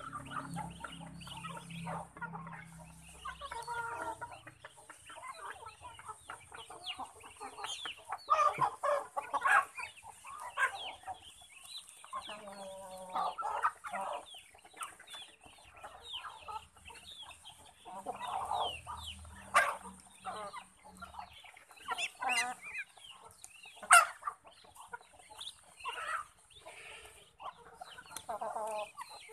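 A flock of chickens clucking and calling while they peck at feed, many short overlapping calls, with two sharp louder calls in the second half.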